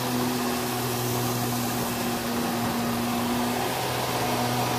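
Electric water pump in a camper's plumbing running steadily with a low hum while the toilet is flushed.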